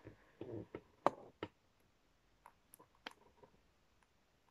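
A few faint, sharp clicks and taps spread over a few seconds: fingers handling a stiff picture book held up close.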